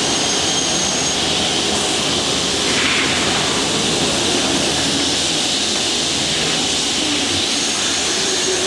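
TAI CHAN PSN panel saw running, a steady loud rushing machine noise with a faint high whistle at times.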